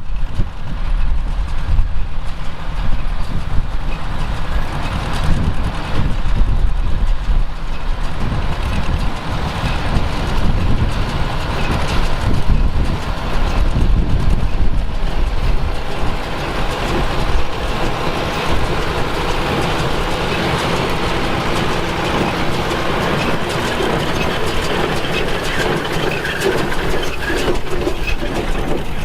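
John Deere 2140 tractor's diesel engine running, with a John Deere 456 hay baler hitched behind it, making continuous mechanical noise that evens out about halfway through.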